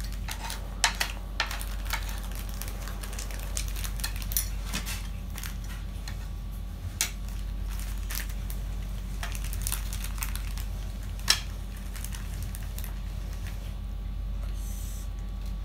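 Small plastic bag crinkling and rustling in the hands as areca nut and betel leaf are taken out of it, with scattered sharp clicks and taps, over a steady low hum.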